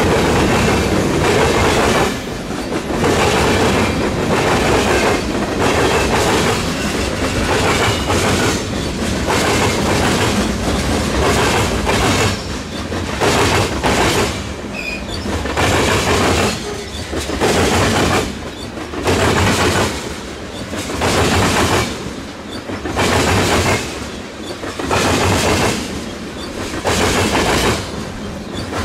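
Freight train cars rolling past, their steel wheels clattering over the rail joints. The clatter settles partway through into a regular beat about every second and a half as each car's wheel sets pass.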